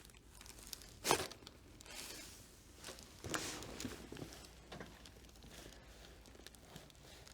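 Chiropractic spinal adjustment: a single sharp crack about a second in, with crinkling and rustling on the treatment table around it as the patient is positioned and moved.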